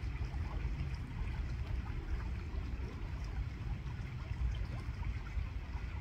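Shallow river water flowing over stones: a steady rush with a low rumble and small trickling splashes.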